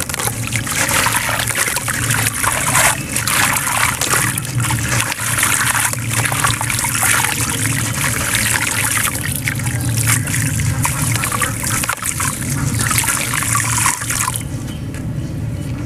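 A dry, gritty sand-cement chunk crunching and crumbling in the hands, its grit and powder pouring and trickling down into water in a basin, over a steady low hum. The crunching stops about a second and a half before the end.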